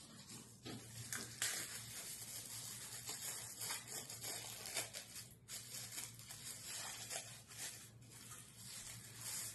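Packaging being unwrapped by hand from a small doorbell chime unit: continuous rustling and crinkling with scratchy tearing sounds, over a low steady hum.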